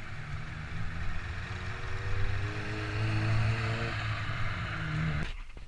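A vehicle engine running steadily at low speed, with wind and road noise over it; the sound cuts off abruptly near the end.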